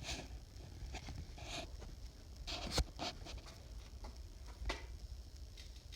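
Faint handling noise: scattered soft rustles and light clicks, with one sharper click a little under three seconds in.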